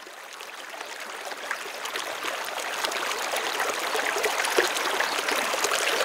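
Muddy creek water pouring over a rock ledge in a small waterfall: a steady splashing rush that fades in and grows louder.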